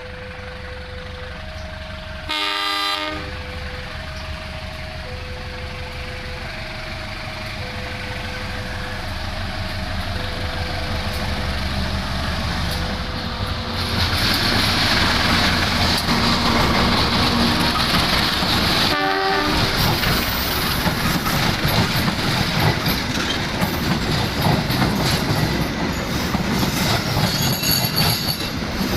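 Indonesian railway train approaching and passing. The locomotive horn sounds about two and a half seconds in, then a shorter blast about nineteen seconds in. Until about thirteen seconds an electronic two-tone warning signal alternates high and low. From about fourteen seconds the train's rumble and rapid clickety-clack of wheels over the rails grow loud.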